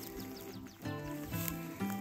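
Background music with sustained chords that change about a second in and again near the end.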